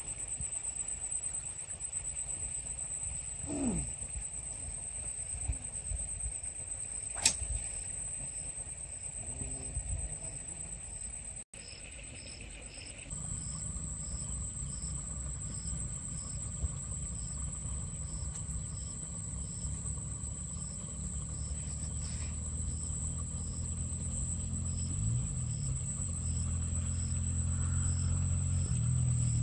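Outdoor ambience: a steady high-pitched drone of insects with a faint, regularly pulsing chirp, and a few isolated clicks. A low rumble joins about halfway through and grows slowly louder.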